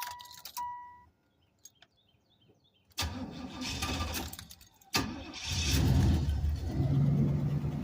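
Two short warning chimes, then after a pause the car's engine is cranked by the starter for about two seconds, catches about five seconds in and settles into a steady idle.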